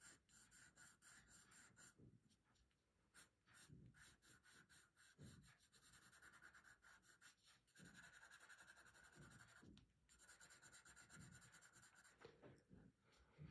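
Faint scratching of a soft 3B graphite pencil on drawing paper: a quick run of short strokes, shading tone with a light touch, with brief pauses.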